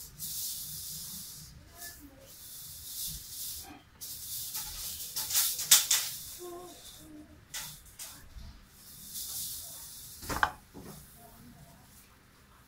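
Scratchy rubbing and picking of fingers working over raw pork trotters, a soft hiss that swells and fades with the hand movements, with a few small clicks and one louder knock about ten seconds in.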